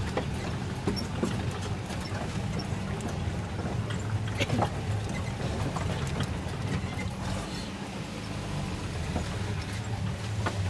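Off-road 4x4 engine running steadily at low speed, with scattered knocks and rattles as the vehicle jolts over a rutted, muddy track.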